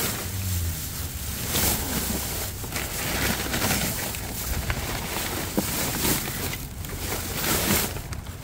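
Steady rumbling noise like wind buffeting the microphone, with a few faint knocks.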